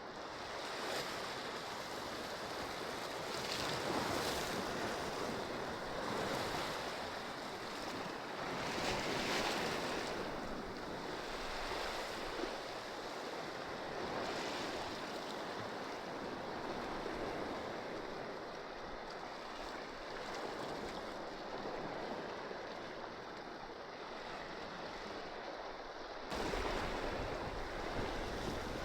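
Sea surf washing against a rocky shore, swelling and easing every few seconds, with some wind on the microphone. About 26 seconds in the sound changes abruptly and a low wind rumble comes in.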